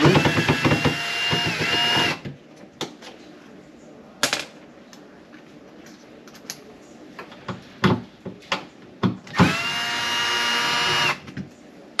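Cordless drill/driver running in two short bursts, about two seconds each, one at the start and one near the end, as it backs out a screw. Light clicks and knocks of handling come between the bursts.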